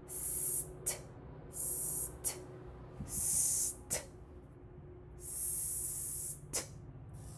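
Four short bursts of high-pitched hissing, each followed by a sharp click, over a faint steady hum.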